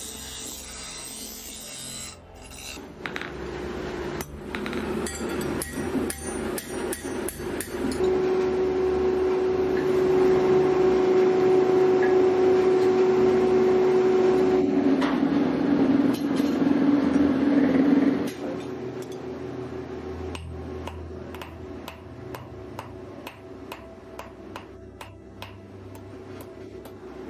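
Steel plate held against a motor-driven grinding wheel: a steady whine with a rasping grind, dropping in pitch partway through as the wheel is loaded. Later comes a run of light, sharp metal knocks.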